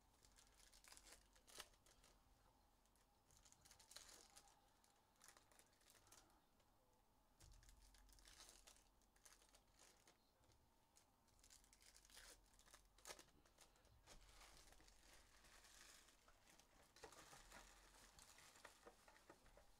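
Faint tearing and crinkling of foil trading-card pack wrappers being opened, with a few soft clicks scattered through.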